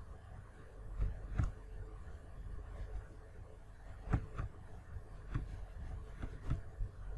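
Low room noise with about half a dozen short, sharp clicks spread unevenly through it, the loudest pair about four seconds in: clicks from working a computer's mouse and keyboard.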